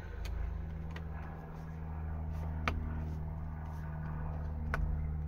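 Plastic interior door trim on a Ford Mondeo Mk5 being worked into place by hand, giving four sharp clicks spread across a few seconds as its clips are pressed home. A steady low hum runs underneath.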